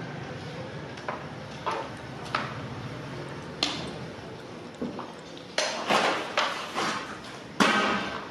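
A metal spatula scrapes and knocks against the inside of a large metal cooking pot as rice is stirred through hot broth. The strokes are irregular, sparse at first, then come quicker and louder over the last few seconds.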